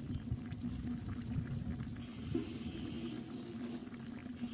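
Meat curry bubbling and simmering in a clay pot over a fire, a steady low bubbling.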